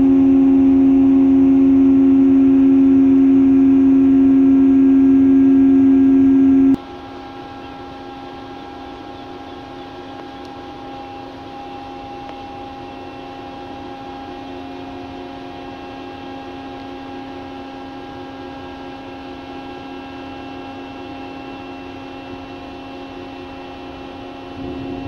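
Steady mechanical hum of shipboard machinery, a drone of a few fixed low tones. It is loud at first, then drops suddenly to a much quieter steady hum about seven seconds in.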